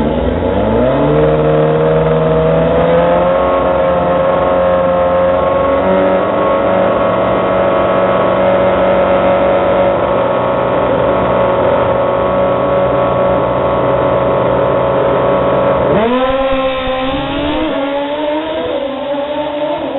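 Drag-racing motorcycle engines revved up on the start line, climbing in pitch over the first couple of seconds and then held steady at high revs while staged. About 16 seconds in they launch: the sound changes suddenly and the pitch climbs again as the bikes accelerate hard down the strip.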